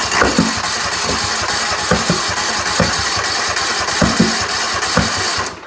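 Craftsman riding mower engine turned over by its electric starter with the choke on, cranking without catching and letting out a few loud pops through the muffler; the battery is nearly flat. The cranking cuts off abruptly near the end.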